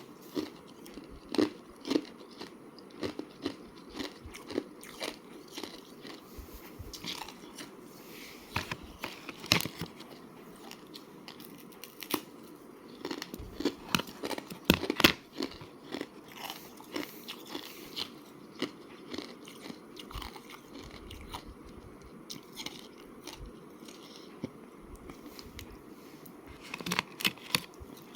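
Thin slab of ice being bitten and chewed close to the microphone: sharp, crisp crunches and crackles come in clusters, the densest run about halfway through, with quieter chewing between.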